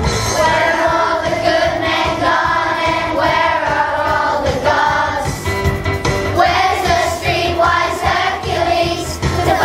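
Music: a song with a group of voices singing over a steady beat.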